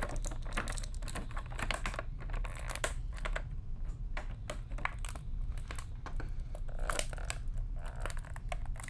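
Thin clear plastic bag crinkling as an action figure is worked out of it: a dense, irregular run of small crackles and rustles.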